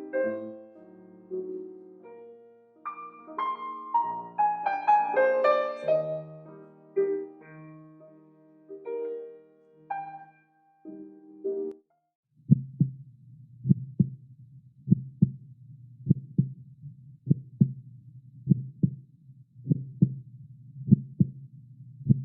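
Soft piano music for about the first twelve seconds, then a heartbeat sound effect: paired lub-dub beats, a little under one pair a second, over a low steady hum.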